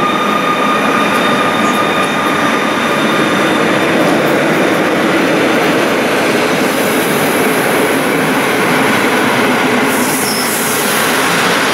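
PKP Intercity EU160 electric locomotive hauling TLK passenger coaches along the platform, with a loud, steady rush and rumble of wheels on rail. A high whine fades over the first couple of seconds, and there is a brief high squeal near the end.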